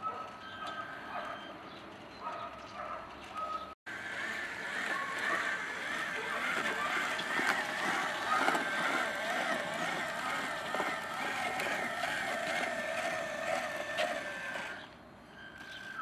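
Radio-controlled model truck's electric drive whining as it crawls along, a steady high whine with wavering pitch below it. The whine comes in after a short break in the sound about four seconds in and fades out briefly near the end.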